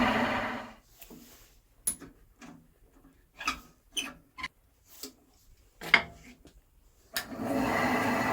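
Axminster Craft AC1950B bandsaw running on a test run of its newly fitted blade, switched off under a second in. A string of sharp clicks and knocks follows, the loudest about six seconds in, and then the saw starts up again about seven seconds in.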